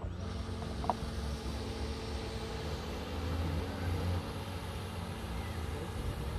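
Steady hum of radio-controlled model boats' motors running across the pond, a few held tones over a low rumble, with a short click about a second in.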